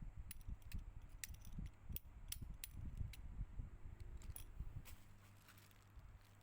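Small tools and phone parts being handled during a phone repair: a string of light, sharp clicks and taps over soft handling bumps, thinning out near the end.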